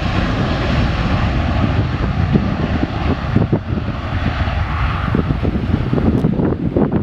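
Engine noise of a passing aircraft, a broad steady rush that fades near the end, with wind buffeting the microphone throughout.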